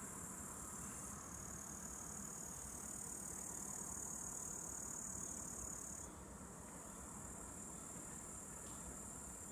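A steady, high-pitched chirring of insects, a little louder in the middle, over a faint low rumble.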